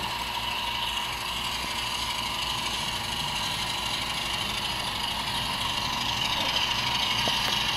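A steady machine hum with a hiss, engine-like and unchanging.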